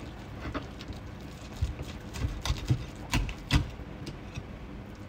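Short deba-style kitchen knife pushed along a fish's backbone, its blade clicking over the bones one after another in a run of irregular clicks and knocks, the loudest a little after three seconds in. The clicking is the sign that the blade is running right against the bone.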